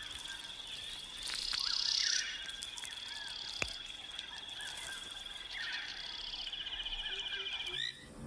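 Tropical nature ambience: insects trill steadily and high, and birds give short chirps. About a second in there is a louder hiss lasting about a second, and a single sharp click follows a little later. Near the end the sound changes to repeated rising chirps.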